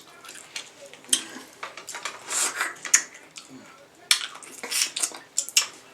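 King crab leg shells being cracked and pulled apart by hand: a string of sharp cracks and crunchy, crackling snaps, with clusters of them about two seconds in and again near the end.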